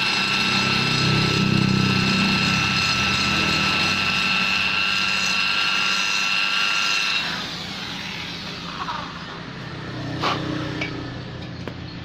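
A high-speed rotary grinder with a carbide tuner burr, running with a steady high whine while shaping a Vespa's ports. It stops about seven seconds in, followed by a few light knocks.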